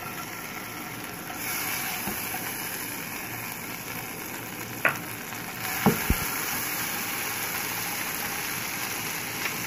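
Butter sizzling as it melts in a nonstick frying pan while a spatula stirs it. The sizzle steps up about a second in and again about halfway through, with a few knocks of the spatula against the pan around the middle.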